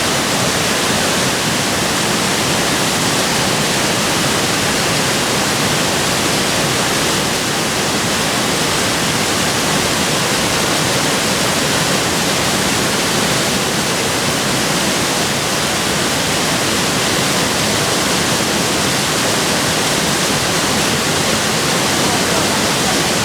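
Sogi Falls, a very wide river waterfall, rushing in a loud, steady, unbroken wash of falling water.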